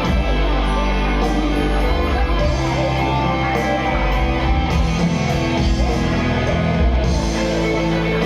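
Band music with guitar over held bass notes that change every second or so.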